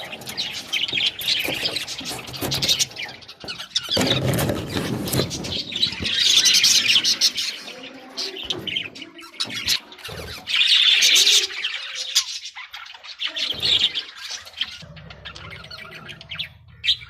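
Budgies chirping and chattering in bursts, with squawky notes; the chatter is loudest about six seconds in and again about ten seconds in. A brief spell of low noise comes about four seconds in.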